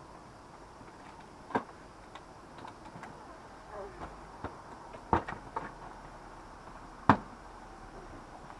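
Three sharp knocks, about one and a half, five and seven seconds in, with fainter clicks and ticks between, over a quiet steady background hiss.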